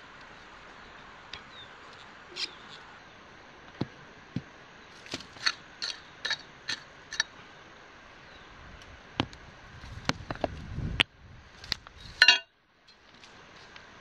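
Digging in rocky ground: a hand tool striking stones in a string of sharp clinks and knocks, with rougher scraping around ten seconds in and the loudest clatter shortly before the end.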